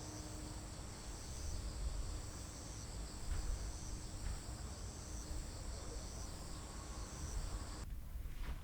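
Crickets singing outdoors: a steady high trill with a second, pulsing chorus that swells about once a second, over a low rumble. It cuts off suddenly near the end.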